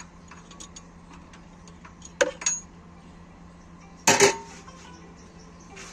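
A few sharp clinks and knocks over a steady low hum, the loudest a short clatter about four seconds in.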